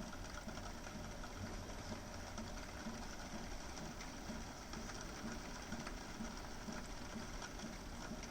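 Rain falling: a steady hiss of rain with many small, scattered drop ticks.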